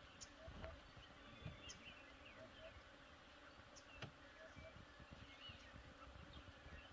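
Near silence: faint bush ambience with scattered small high chirps and a soft click about four seconds in.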